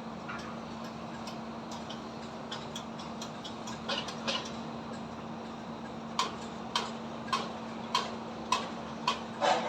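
Construction-site hammering: sharp knocks, a few scattered at first, then from about six seconds in a steady run of blows a little under two a second, over a constant low hum.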